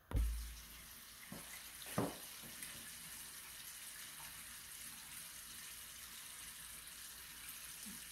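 A heavy low thump at the start, then two light knocks about one and two seconds in, like utensils or crockery handled while porridge is ladled into a bowl, over a steady hiss that runs on without change.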